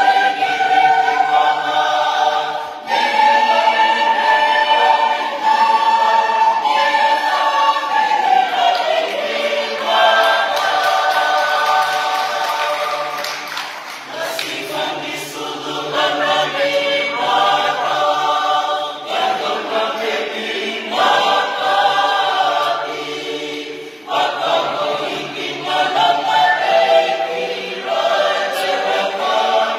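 Church choir singing a hymn in several voices, unaccompanied, in long held phrases with brief dips between them.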